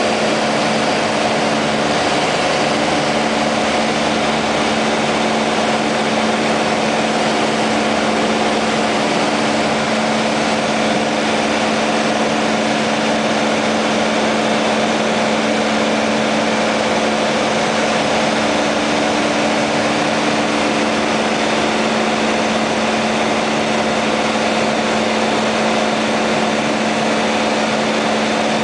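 Piper Cherokee Warrior II's four-cylinder Lycoming engine and propeller running steadily in flight, heard inside the cabin as a constant drone with a few held tones over a steady rush of noise.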